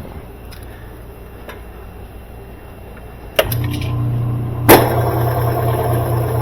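Direct-drive washing machine motor switching on with a click about three and a half seconds in and then running with a steady low hum as the machine is put into spin, with a loud clack about a second later. The motor is driving the transmission through a newly replaced motor coupling.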